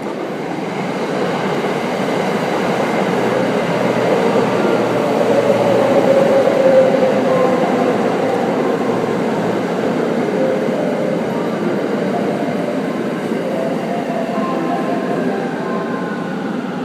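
681-series Thunderbird limited express electric train running past at a station platform, a steady rush of wheels and running gear that builds to its loudest about halfway through. Near the end a falling whine comes from the train.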